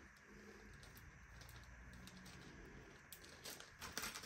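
Faint rustling and light clicking of small plastic bags of diamond-painting drills being handled, starting about three and a half seconds in after a mostly quiet stretch.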